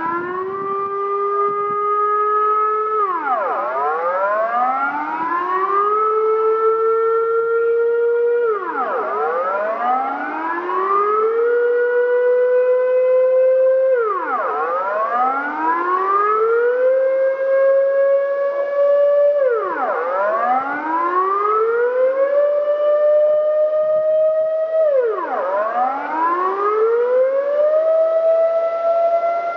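Dutch civil-defence air-raid siren sounding its wailing alarm signal. The pitch climbs slowly over about three seconds, then drops sharply, and the cycle repeats about every five and a half seconds. This is the routine monthly noon test of the warning sirens.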